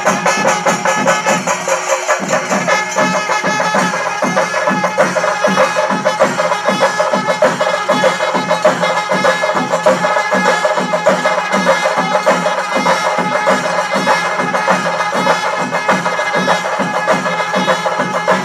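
Kerala temple festival percussion ensemble playing live: drums and cymbals beating a fast, even rhythm under a steady held tone.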